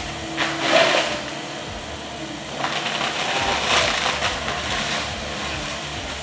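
Excavator-mounted disc mulcher (AFE RDM34EXH) spinning and grinding through brush and saplings, a continuous shredding noise with louder bursts of chewing about a second in and again near four seconds in.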